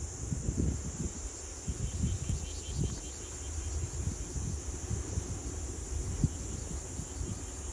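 Wind buffeting the microphone in uneven gusts, over a steady outdoor hiss, with a faint run of insect chirps about two to three seconds in.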